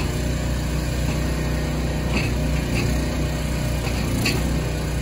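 A small engine runs steadily at an even speed, with a few brief high creaks about two and four seconds in.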